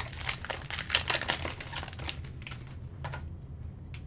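Football trading cards being handled and flipped through by hand: a quick run of crisp clicks and rustles of card stock for about two seconds, a couple more a second later, then quieter.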